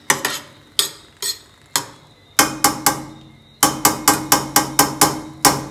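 Metal spoon clanking against a stainless steel skillet as broccoli and mushrooms are stirred and tossed. Scattered strikes come first, then quick runs of strikes in the second half, with the pan ringing under them.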